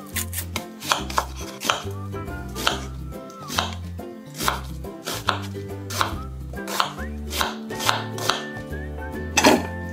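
Kitchen knife cutting a raw onion into large chunks on a bamboo cutting board: irregular sharp knocks of the blade striking the board, about two a second, with the loudest one near the end.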